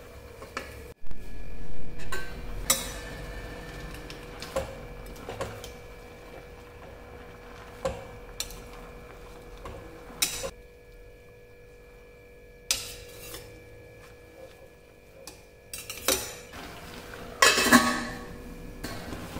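A metal spoon clinking and scraping against a stainless steel pot while stirring wilted spinach, in a dozen or so separate knocks. Near the end, a stainless steel lid is set down on the pot with a ringing clank.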